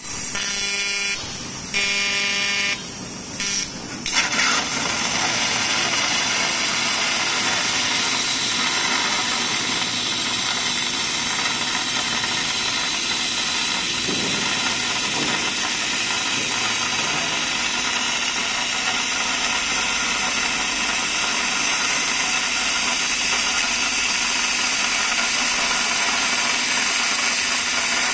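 20 kW fiber laser cutting machine cutting 50 mm mild steel with oxygen assist gas: a loud, steady hiss of the gas jet and burning steel at the cut. During the first four seconds a pitched buzz comes in three short stretches, then the steady hiss sets in.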